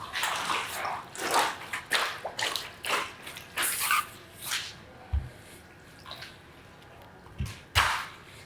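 Water splashing and sloshing in short, irregular bursts, quieter from about five seconds in, with a couple of dull thuds.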